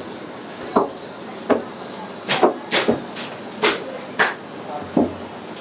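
About ten short knocks and taps at uneven intervals, bunched in the middle, over a low steady background.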